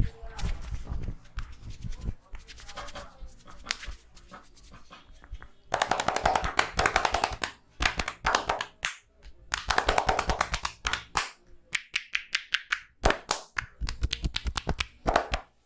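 Rapid percussive massage strokes: hands chopping, slapping and tapping on the head, neck or shoulders, many quick strikes a second in several bursts with short pauses between them.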